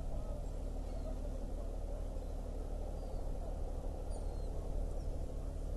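Steady low rumble of a lake freighter's engine, with a few faint high bird chirps above it.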